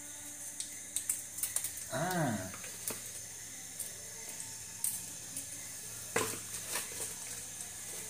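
Scattered light clicks and taps of kitchen containers and lids being picked up and handled on a counter while searching for a spice, with a brief vocal sound about two seconds in.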